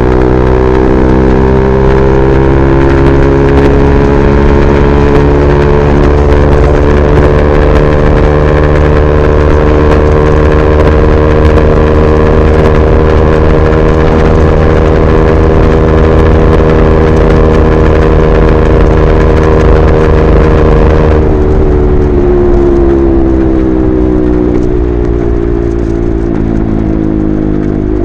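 KTM RC 390's single-cylinder engine through an SC Project replica slip-on exhaust, running steadily at highway speed. About three-quarters of the way through, the engine note eases off and falls in pitch, then climbs again near the end.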